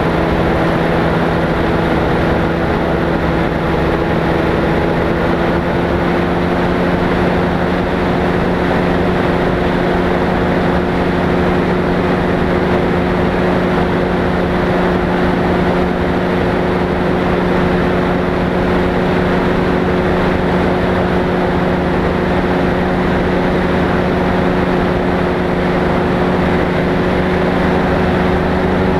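Light propeller aircraft's engine running steadily with a constant drone, its pitch creeping up slightly a few seconds in.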